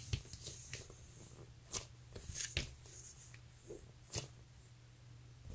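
Faint rustling and a few light taps from hands picking up and squeezing Soft'n Slo Squishies foam monster toys, over a low steady hum.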